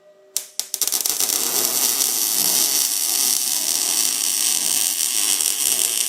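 MIG welder laying a bead: after a couple of short starts, a steady fast crackle and sizzle of the arc that stops near the end.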